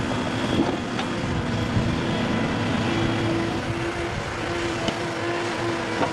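Heavy logging machinery running steadily, an excavator-type log loader, with a faint whine that comes and goes and a few light knocks.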